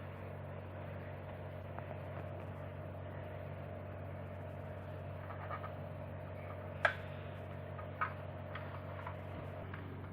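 A few light clicks and taps from handling a 1:24 die-cast model car, the sharpest about seven seconds in, over a steady low hum.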